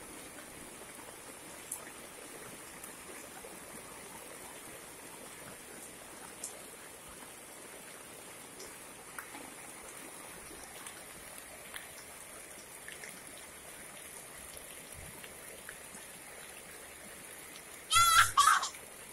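Steady rain falling on a paved yard: an even hiss with a few faint drip and splash ticks. Near the end a young child gives one short, loud, wavering squeal.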